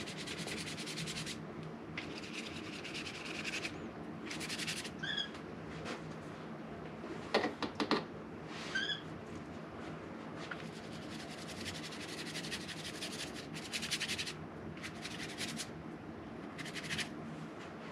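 A paintbrush scraping and rubbing thick acrylic paint across paper in a run of short strokes, each lasting up to a second or two, with a brief cluster of sharper scratches near the middle.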